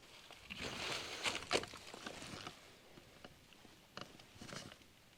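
Faint scuffing and rustling for about two seconds, then a few soft knocks.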